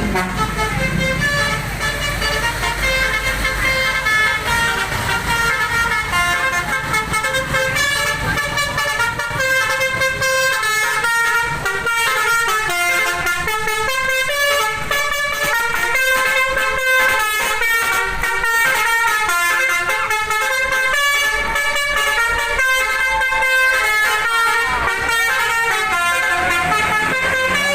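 Telolet bus horn, a set of musical air-horn trumpets, playing a long tune of stepped tones that jump from note to note. A low rumble sits under the first few seconds.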